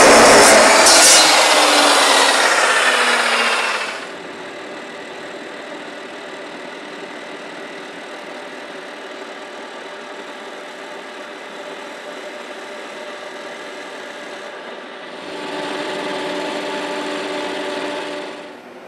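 Metal-cutting chop saw slicing through a rusty steel tube, loud and harsh, ending abruptly about four seconds in. Then a metal lathe runs with a steady hum, getting louder from about fifteen seconds in until just before the end.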